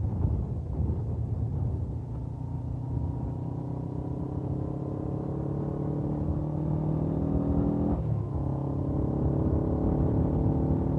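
Suzuki GS500F's air-cooled parallel-twin engine with its stock exhaust, pulling steadily with the revs slowly rising, then a quick upshift about eight seconds in before it pulls again.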